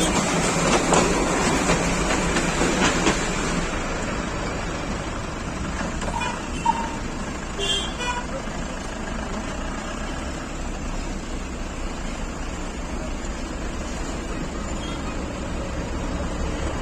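Vehicle and road traffic noise: a louder rumble for the first few seconds, then a steadier one, with a couple of short horn toots around the middle.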